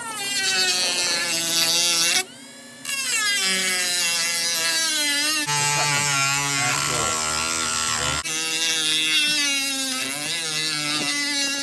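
Dremel rotary tool with a cut-off wheel grinding down the ends of steel bolts, a high whine that drops in pitch as the wheel bites under load and picks back up, with a short pause about two seconds in. The bolts are being cut shorter because their tops hit the carburetor top.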